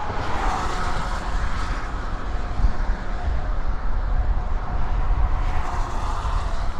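Road traffic running steadily past, with a constant low rumble and a rush that swells as vehicles go by about half a second in and again near the end.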